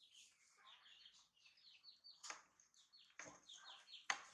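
Faint twittering of small birds: quick short chirps, each dropping in pitch. Three sharp taps come about two, three and four seconds in, the last the loudest.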